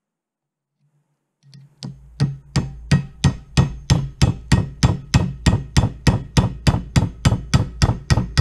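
A hammer tapping a metal punch in steady strokes, about three a second, starting about two seconds in after a faint tap or two. It is driving out an old pin that holds a flintlock musket's barrel in its wooden stock.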